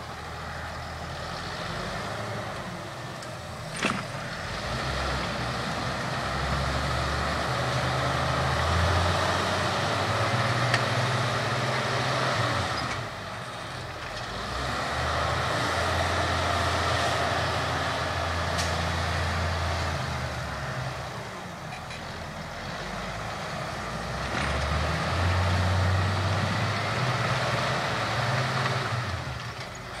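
Valtra tractor's diesel engine running under load with a mounted reversible plough, its sound swelling and fading several times over the stretch. A single sharp click sounds about four seconds in.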